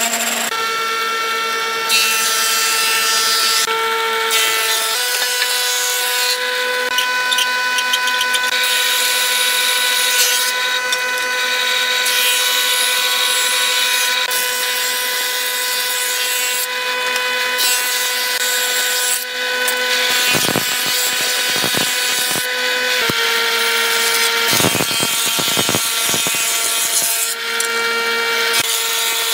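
Combination jointer-planer running with a steady high machine whine over the noise of its cutterhead as boards are fed through the thicknesser, with a few short knocks in the second half.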